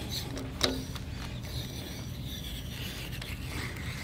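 Steel Helicoil tap being turned back out of a freshly cut threaded hole by hand: a sharp metallic click with a brief ring about half a second in, then faint scraping of the tap in the threads.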